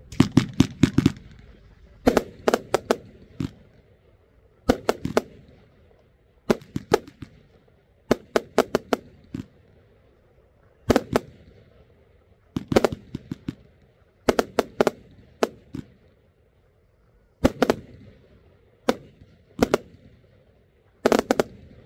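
A 'Leidenschaft' compound fireworks cake firing: sharp bangs come in clusters of two to five in quick succession, a cluster every one and a half to two seconds.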